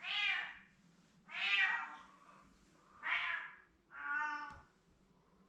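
Domestic cat meowing four times, each meow a drawn-out call of under a second, a second or so apart.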